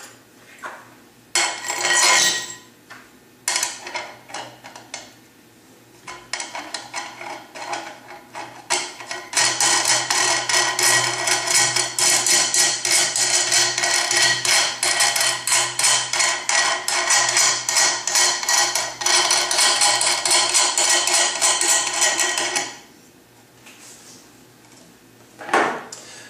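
A steel nut being run down the long threaded rod of a homemade clutch spring compressor to compress the clutch's springs. A few short metallic clatters come first, then rapid, steady metal-on-metal clicking for about thirteen seconds, which stops suddenly.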